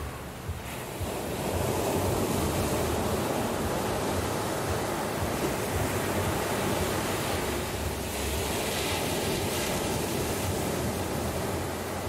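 Sea surf breaking and washing up a sandy beach: a steady rush of waves that swells about a second in and then holds.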